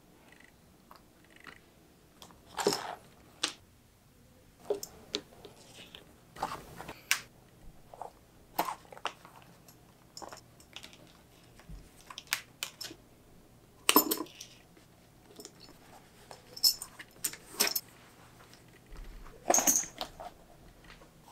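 Hand-stitching leather: irregular soft clicks and rustles of a needle and thread being drawn through pre-punched stitching holes as the leather is handled and flexed, with a few longer, louder scrapes of thread pulled tight.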